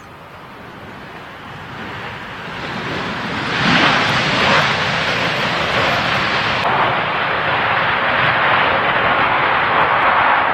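Jet airliner coming in to land and passing close, its engine noise swelling over the first four seconds into a loud, steady rush that holds to the end.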